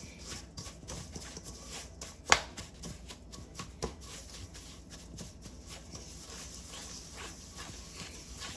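Butter and sugar being creamed by hand with a spatula in a stainless steel bowl: a run of scraping strokes and soft knocks against the metal. There is one sharp knock about two seconds in and a smaller one near four seconds.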